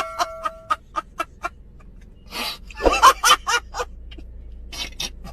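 Comedy laughing sound effects. A run of short, quick staccato pulses fades out over the first second and a half. A breathy burst and a short pitched laugh come around three seconds in, and a couple of brief pulses follow near the end.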